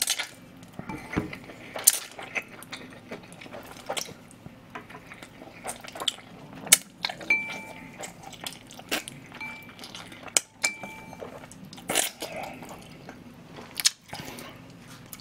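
A person slurping spicy cold instant jjolmyeon noodles from a bowl and chewing them, with wet mouth smacks and chopsticks clicking on the bowl. The louder slurps come at the start, about two seconds in and about twelve seconds in. Three short electronic beeps sound between about seven and eleven seconds in.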